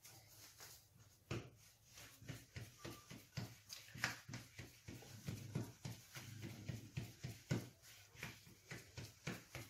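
Hands rolling and pressing a log of fekkas dough on a table: a faint, irregular run of soft pats and knocks, several a second.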